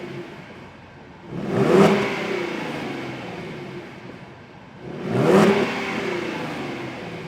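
Ford Mustang 3.7-litre V6 exhaust revved twice while parked: each time the engine note climbs quickly, peaks, and falls back to idle over a couple of seconds.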